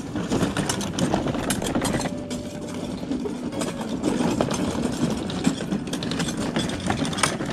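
Children's battery-powered ride-on toy car driving across bumpy grass: its motor running, with irregular rattling and clattering from the plastic wheels and towed trailer.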